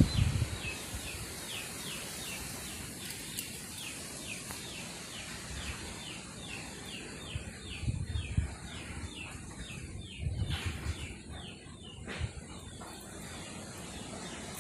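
Parent bird near its nest calling in a steady, rapid series of short high chirps, about three or four a second, the alarm calls of adults with hatchlings in the nest. A few soft low bumps come about eight and ten to twelve seconds in.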